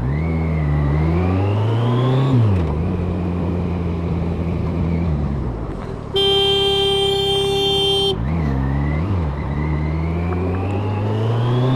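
Motorcycle engine, likely a Kawasaki GTR1400's, pulls up through a gear change, runs steadily, then slows. About six seconds in, a horn sounds one steady note for about two seconds. The engine is then blipped twice and pulls away, rising in pitch again.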